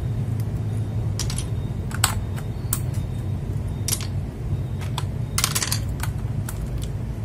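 Plastic PBT keycaps clicking and clattering as they are handled, a dozen or so irregular sharp clicks over a steady low hum.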